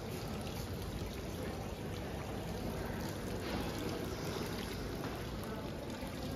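Indoor fountain splashing steadily into its basin.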